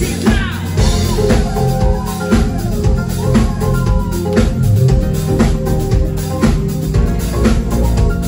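Live pop band playing, with a drum kit keeping a steady beat over bass and keyboards.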